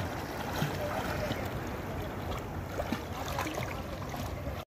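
Shallow sea water splashing and sloshing as a swimmer strokes through it, over a steady noisy wash.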